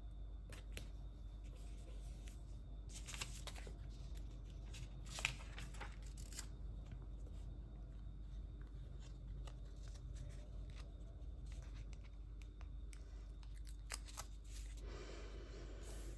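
Quiet paper handling on a planner: a page turned, a sticker sheet shifted, and tweezers placing stickers, heard as scattered light rustles and ticks with a longer rustle near the end, over a steady low hum.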